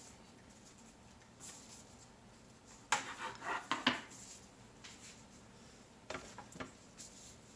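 Kitchen dishes and utensils being handled: short clinks, knocks and rubs in scattered clusters, the loudest about three to four seconds in.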